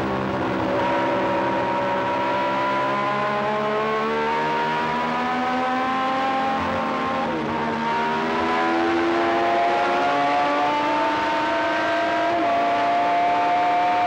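Matra V12 Formula One engine at high revs, heard from on board, its pitch climbing steadily. About halfway through the pitch drops and then climbs again, with a brief dip near the end.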